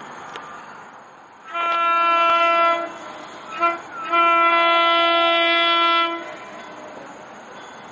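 Commuter train horn sounding a blast of about a second, a quick short toot, then a longer blast of about two seconds as the MARC train approaches. A low steady rumble of rolling trains lies underneath.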